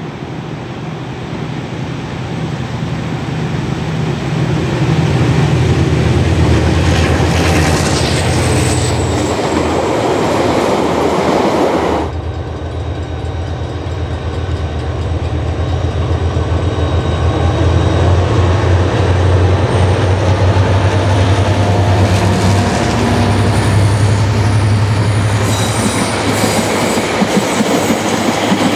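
An EMD DBR-class diesel-electric locomotive hauling a passenger train past at close range, its engine drone building as it approaches. After an abrupt cut, the DBR and a second diesel pull the carriages by with a steady engine drone, wheels clicking over rail joints and a thin wheel squeal in the second half.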